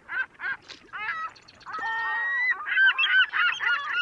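A rapid series of honking bird calls, about three a second, with one longer held call near the middle and several overlapping calls toward the end.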